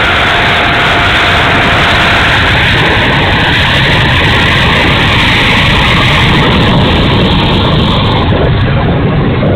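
Twin 64 mm electric ducted fans of an E-flite A-10 Thunderbolt II RC jet running steadily, a loud dense rush with a faint whine that fades out about two and a half seconds in. The owner calls it a noisy, bad motor sound, the sign of a faulty fan motor.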